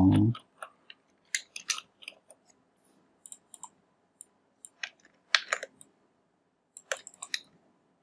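Scattered clicks of a computer keyboard and mouse, typing in small clusters with short pauses between them.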